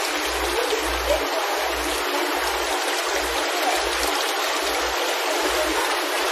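Seawater running and splashing into live-seafood display tanks: a steady rushing, splashing water sound.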